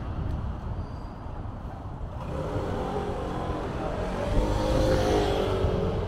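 A vehicle passing by: a rush of noise with a faint whine builds from about two seconds in, peaks near the five-second mark and eases off, over a steady low rumble.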